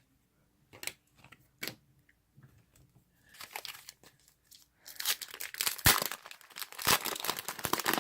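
Trading-card pack wrapper being torn open and crinkled, with a few light handling clicks in the first two seconds; the tearing and crinkling grows from about halfway in and is loudest in the last three seconds.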